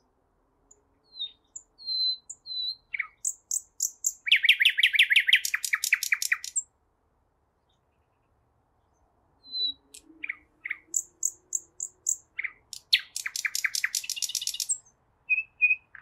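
Nightingale singing: two phrases a few seconds apart, each opening with a few separate whistled notes and running into a fast series of repeated notes.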